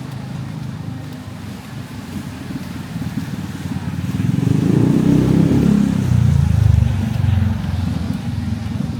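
A motor vehicle passing close by: its low rumble swells from about four seconds in, peaks, then fades by about eight seconds, over a steady low background rumble.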